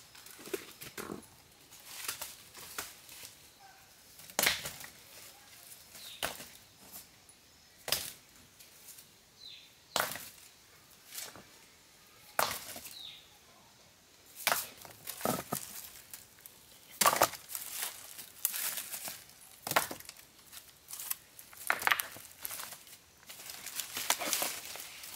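Irregular sharp knocks and short scrapes from hand work, about one a second, coming thicker and louder in the second half.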